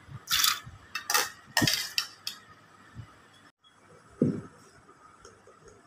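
Split chickpeas (chana dal) tipped from a steel bowl into an aluminium pot: the grains clatter onto the metal and the bowl clinks against the rim in a few short bursts over the first two seconds. A single dull knock about four seconds in.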